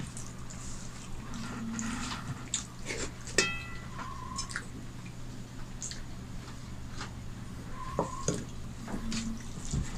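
Hand mixing rice and dal on a stainless steel plate: soft wet squishing with small scattered taps. A little over three seconds in, a steel bowl clinks sharply against the plate and rings as dal is tipped onto the rice; another short metallic ring comes near the end. A steady low hum runs underneath.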